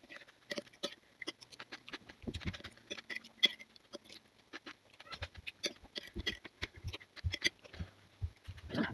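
Close-up eating sounds: slurping meatball soup and noodles from a spoon, chewing, and a spoon and fork tapping against a ceramic bowl, in short irregular clicks and smacks.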